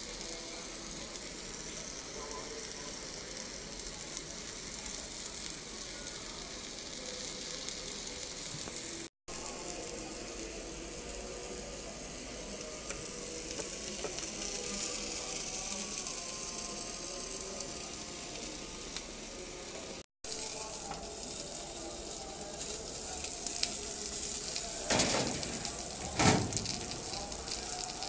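Whole fish sizzling on an electric grill pan, a steady frying hiss that breaks off briefly twice. Two sharp knocks sound near the end.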